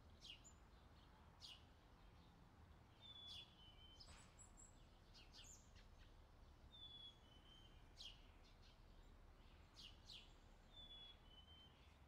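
Faint outdoor summer ambience of birds chirping: short, quick falling chirps every second or two and a two-note whistled call, high then slightly lower, repeating about every four seconds. A low steady rumble runs underneath.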